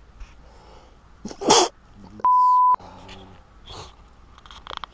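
A person's sharp vocal burst about one and a half seconds in, then a half-second censor bleep, a steady single 1 kHz tone dubbed over a swear word, followed by a few faint spoken sounds.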